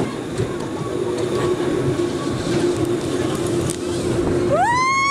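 Roller coaster train running along its track, a steady rumble with a low hum. About four and a half seconds in, a rider lets out a high scream that rises and then holds.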